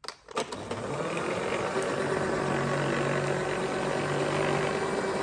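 Electric stand mixer with spiral dough hooks starting with a click and coming up to speed within the first second, then running steadily with a low hum. It is kneading soft yeast dough to blend in freshly added butter.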